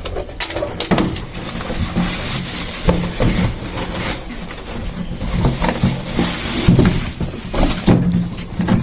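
Rustling and knocking as a new full-face motorcycle helmet is unpacked and handled, with many short clicks and bumps.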